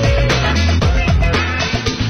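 Upbeat funk-style background music with a steady beat and a bass line.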